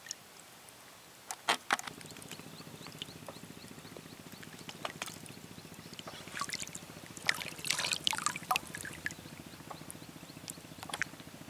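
Water dripping and splashing: a few drips and trickles about a second and a half in, then a longer cluster of small splashes around the middle, as a moss-baited hook is handled over the bait bucket and cast back into the water. A steady low hum runs beneath from about two seconds in.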